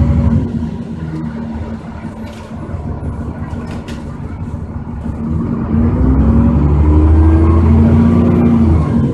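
Diesel engine of a Dennis Trident 2 double-decker bus with a Voith automatic gearbox. It falls back to a lighter note for a few seconds, then pulls away again from about five and a half seconds in, its pitch rising under load. A faint, high turbocharger whistle climbs with the engine during the pull.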